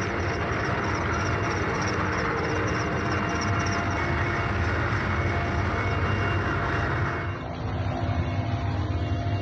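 Helicopter engine and rotor noise heard from inside the open cabin, a loud, steady din. About seven seconds in it turns duller, losing its high end.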